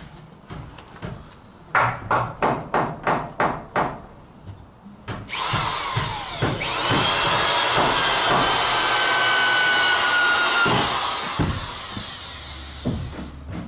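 Corded drill driving a FastenMaster TimberLOK structural screw up through the top plate into a roof truss. The trigger is pulsed about eight times in quick succession to start the screw. The motor then runs at full speed with a high whine for several seconds and winds down as the screw seats.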